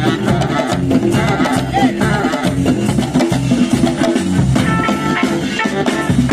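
Live band playing an upbeat dance tune: drum kit keeping a steady beat under upright double bass, saxophone and guitar.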